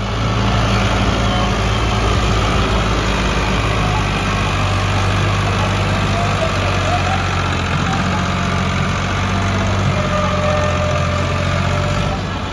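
Ford 4610 tractor's three-cylinder diesel engine running steadily under heavy load, pulling a loaded sugarcane trolley.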